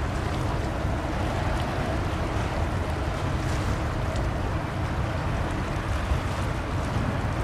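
Steady low rumble and water wash of a ship under way, with wind on the microphone.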